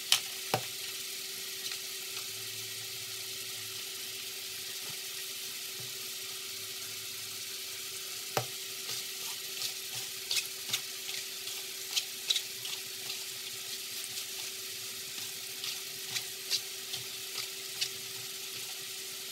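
Mixed vegetables sizzling in oil in a frying pan: a steady hiss with scattered small pops and crackles, over a faint steady hum.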